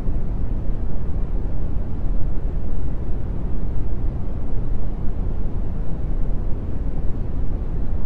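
Deep brown noise: a steady, even hiss weighted heavily toward the bass and fading toward the highs, with no rhythm or change.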